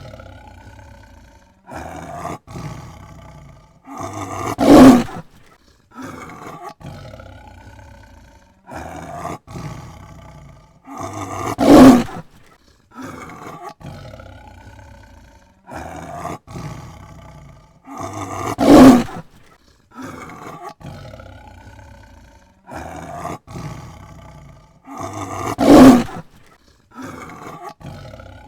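Tiger roaring: a series of shorter calls building to one loud roar, the same sequence coming round four times about seven seconds apart.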